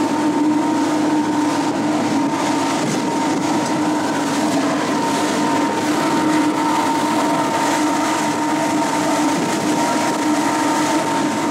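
A fishing boat's motor running steadily at speed, a constant drone holding one pitch, under the rush of wind and water spray as the boat moves across the bay.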